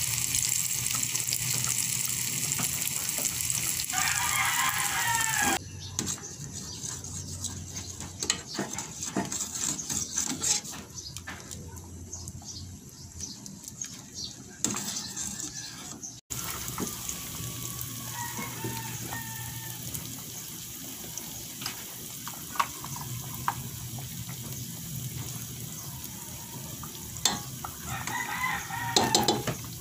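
Onions, garlic and vegetables sizzling in oil in a frying pan, with a rooster crowing about four seconds in. After the sizzle stops, a metal ladle clinks and scrapes in a pot of boiled mung bean soup, and a rooster crows again near the end.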